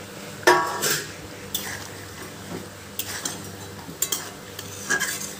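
Metal spatula clanking and scraping against a metal cooking pot while stirring a thick curry, about five knocks, the loudest about half a second in with a brief metallic ring.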